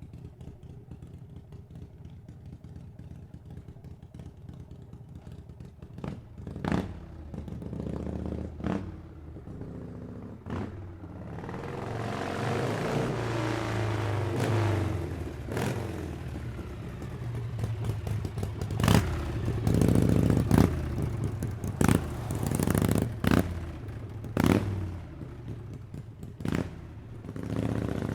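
Harley-Davidson V-twin motorcycle engine idling with a low, steady beat, then sharp throttle blips, then revving and pulling away with repeated swells and falls in the engine note as it accelerates.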